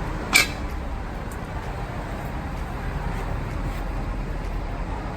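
Steady low rumble of roadside traffic, with a single sharp knock about half a second in.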